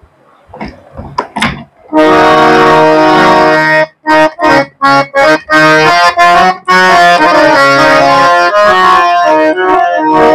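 Harmonium playing. After a few faint clicks it comes in about two seconds in with sustained reed chords and a melody, plays a run of short detached chords, then moves back to held notes.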